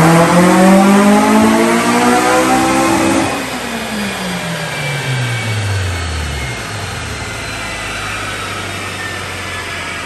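Honda K20 four-cylinder in a Civic EG, revving up under full load on a chassis dyno. About three seconds in the throttle is lifted and the engine and rollers wind down over the next few seconds before settling into a steady lower hum.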